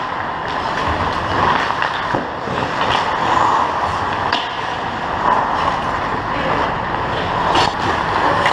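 Ice hockey skate blades scraping and carving on rink ice in a continuous irregular hiss, with a few sharp stick-and-puck clacks, the clearest near the end.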